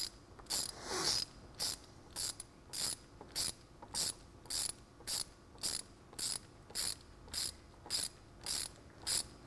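Hand ratchet wrench with a 5/8-inch socket clicking in short bursts, one every half second or so, as its handle is swung back and forth to tighten a nut.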